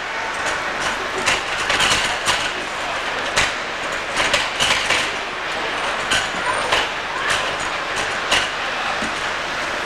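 Street traffic noise with a steady rumble and frequent irregular clattering knocks.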